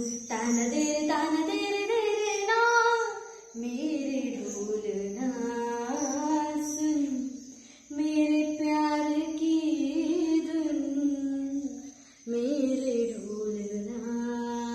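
A solo voice singing a slow melody in long held phrases, pausing for breath about every four seconds.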